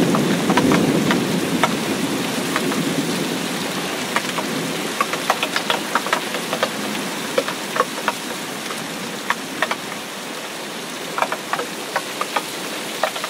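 Rain falling into a shallow flooded puddle: a steady patter with many single drops plinking sharply on the water. A low rumble dies away over the first few seconds.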